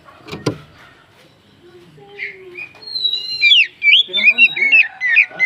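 Oriental magpie-robin (kacer) singing: a rapid run of loud, varied whistled phrases with quick rising and falling glides, starting about two seconds in. A single sharp knock sounds about half a second in.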